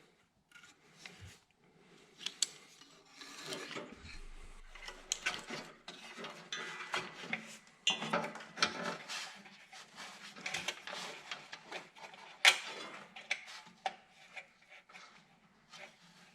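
Hand-tool work on a tractor engine: irregular metallic clicks, clinks and scraping as parts are worked loose, with one sharp clink near the end.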